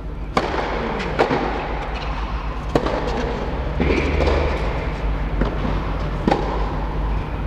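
Tennis rally on clay: a serve followed by racket-on-ball strikes, about six sharp hits spaced a second or so apart, each echoing in an indoor dome over a steady low hum.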